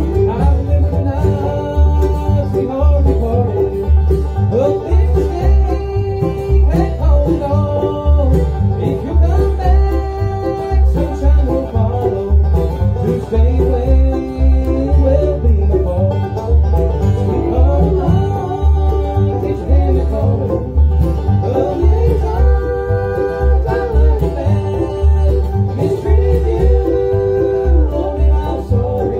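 A bluegrass band playing live: banjo, mandolin, acoustic guitar and upright bass, the bass keeping a steady, even beat under fast plucked notes.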